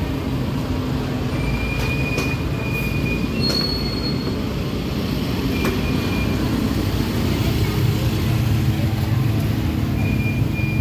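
Busy city street traffic: a steady low rumble of vehicle engines with several brief high-pitched squeals over it.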